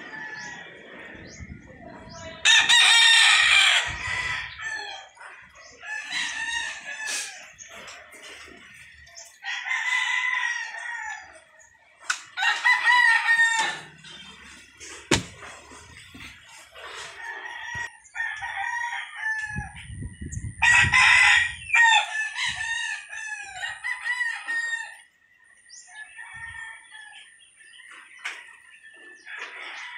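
Rooster crowing over and over, with clucking between the crows; the loudest crows come about three seconds in and about twenty-one seconds in.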